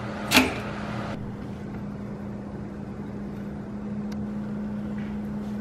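Four-slot stainless steel toaster's lever pushed down, latching with one sharp click a little under half a second in, over a steady low hum.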